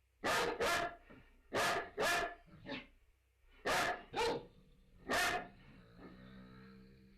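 Two dogs barking in turn, about seven sharp barks, mostly in quick pairs. Near the end a fainter, steady low drone sets in.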